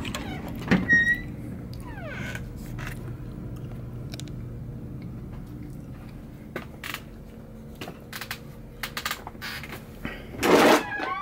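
An interior door opened by its knob: a latch clack, then a short hinge squeak about a second in that slides down in pitch. After that, a low steady hum with scattered small knocks and clicks, and a louder burst near the end.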